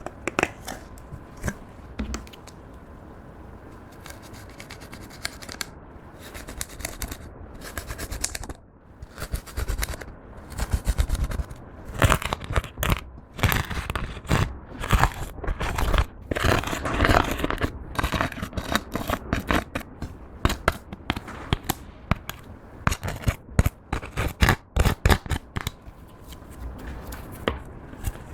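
Clear slime being worked and squished by hand, giving irregular sticky clicks, pops and crackles. These are sparse at first and become louder and busier after about eight seconds.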